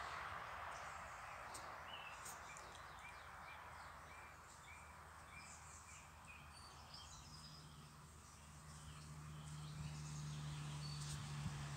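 Faint garden ambience with small birds chirping, including a run of short repeated chirps in the first half. A low steady hum comes in about seven seconds in and grows louder toward the end.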